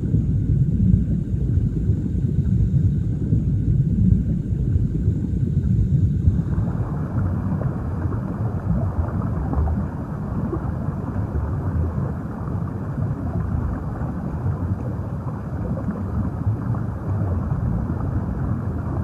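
Steady low rumbling water noise with no pitched calls. About six seconds in it turns fuller and brighter and then holds steady.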